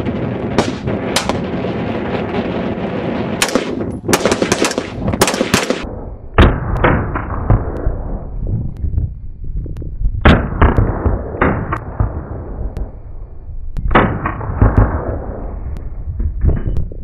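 Gunshots on a firing range: a pistol fired a few times and then in a quick run of shots, with wind on the microphone. About six seconds in, an M16-pattern rifle takes over, firing single shots in irregular groups of two to four.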